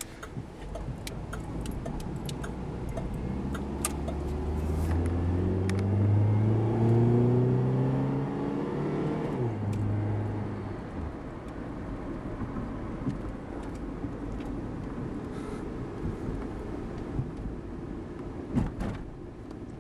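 1993 Chevy Corsica's little four-cylinder engine heard from inside the cabin, rising in pitch as the car accelerates, then dropping sharply about nine and a half seconds in as the automatic transmission shifts up. After the shift it runs lower and steadier under road noise.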